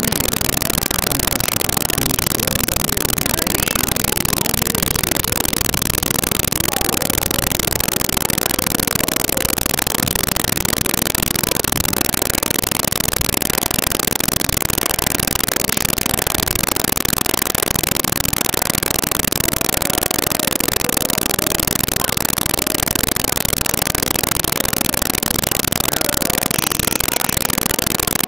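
Steady, loud hiss-like static with no distinct events or voices standing out: a badly degraded audio track.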